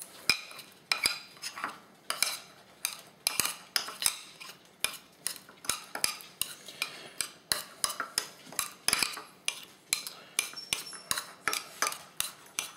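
A utensil mixing softened butter with garlic powder in a small ceramic bowl, scraping and clinking against the bowl in an irregular run of about two or three strokes a second.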